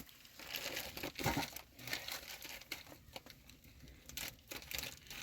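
Irregular rustling and crinkling, a run of short crackles, as of something being handled.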